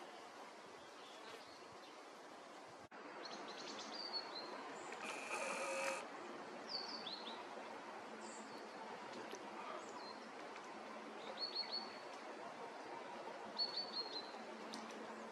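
Forest ambience: small birds give short, high, downward-dipping chirps now and then, often in twos or threes, over a steady background hiss. About five seconds in, a louder buzzy sound lasting about a second stands out.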